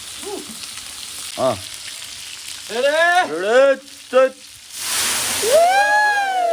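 People letting out short, wavering shouts, then one long call that falls in pitch near the end, over a steady crackling hiss.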